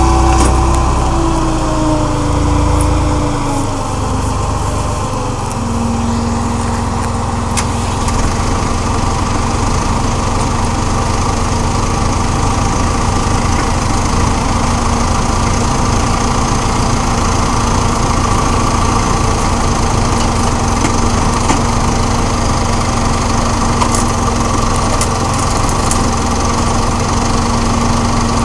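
Tractor engine running a log splitter, its pitch falling over the first few seconds as it slows, then settling into a steady drone. A few faint clicks sound over it.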